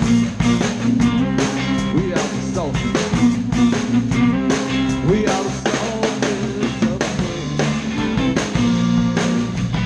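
Live rock band playing: a drum kit keeps a steady beat under guitar and bass, with sliding melodic notes on top.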